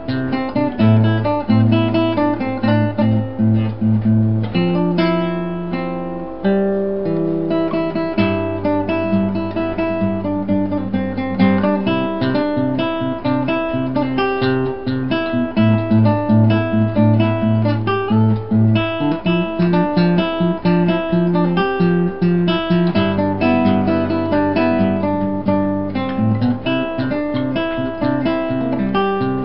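Background music played on acoustic guitar, strummed chords with quick picked notes over changing low notes.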